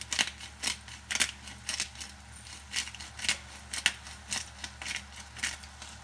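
Black pepper grinder twisted by hand, giving short gritty grinding crunches about two a second, unevenly spaced.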